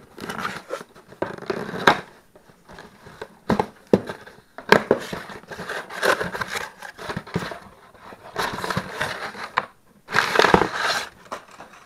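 Cardboard shipping box being cut open and its flaps handled, with scraping, clicks and rustling, then crumpled paper packing rustled and pulled out, loudest about ten seconds in.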